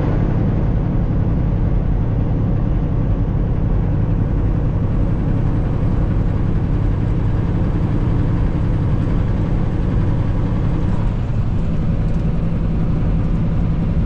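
Semi-truck's diesel engine running steadily, a continuous low hum over road-like noise.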